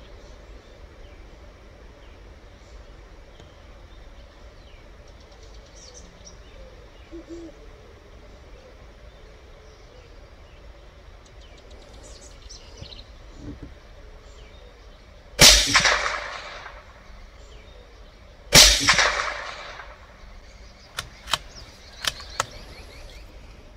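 Two shots from a CZ 457 Lux .22 LR bolt-action rifle, about three seconds apart, each trailing off over about a second. A few quick, light clicks follow near the end.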